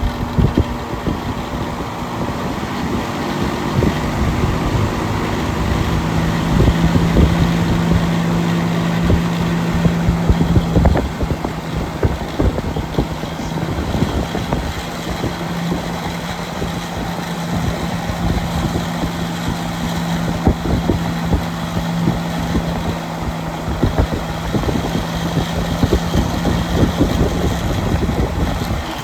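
Central air conditioner's outdoor condenser unit running, its large fan blowing hard, with heavy wind buffeting on the microphone over a steady low hum. The noise drops off suddenly at the very end.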